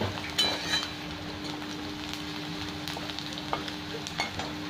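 Chopped onion sizzling steadily as it fries in hot oil in a kadai. A flat metal spatula scrapes and taps against the pan a few times as it is stirred, near the start and again near the end.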